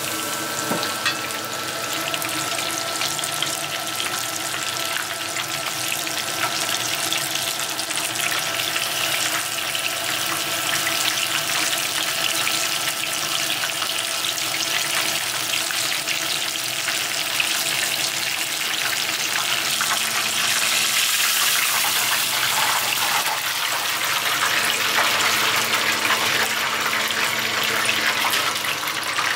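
Tempura batter deep-frying in hot oil: a dense, steady crackling sizzle of bubbling oil, a little louder past the middle.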